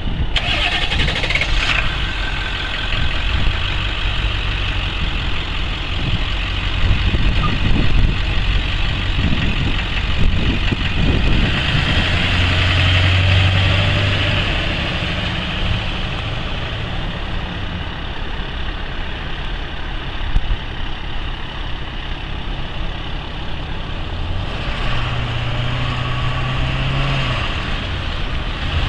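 1999 Ford F550 Super Duty's 7.3L V8 turbo diesel running as the truck drives around, its low engine note rising and falling with throttle, loudest about halfway through.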